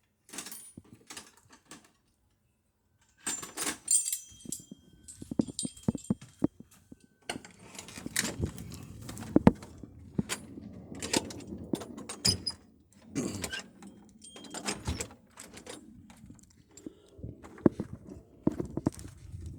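Irregular clicks, knocks and rustling, like objects being handled and jangled, broken by a moment of dead silence about two seconds in.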